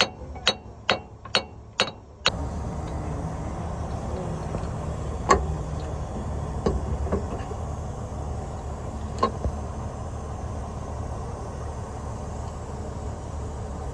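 A quick run of sharp taps, about three a second, for the first two seconds, then a steady low hum with a few scattered knocks.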